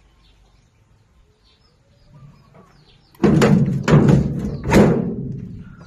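Several sharp metallic knocks and rattles over a heavy rumble, starting suddenly about three seconds in and dying away over the next two seconds, as if parts of a combine harvester's body were being struck or handled. Faint birds chirp before it.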